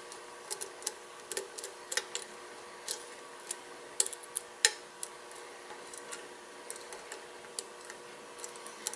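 Hook pick and tension wrench working the pin tumblers of a padlock cylinder: faint, irregularly spaced metallic clicks and ticks as the pick probes the pins for the next binder, with two slightly stronger clicks about four seconds in.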